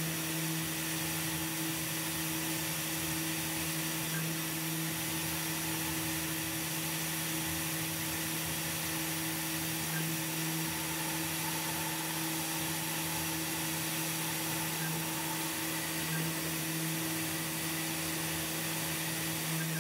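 Tormach 440 CNC mill running steadily, a steady low hum with a higher tone over a hiss, as a chamfer tool traces the edges of the lettering in a brass blank.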